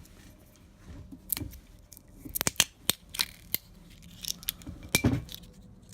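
Foil capsule being peeled and torn off the neck of a wine bottle: an irregular run of sharp crinkling and tearing clicks, loudest about two and a half seconds in and again near five seconds.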